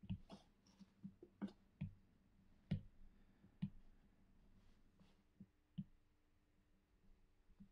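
Faint, irregular clicks and taps of a stylus on a tablet's glass screen while colouring in a shape, about one every second.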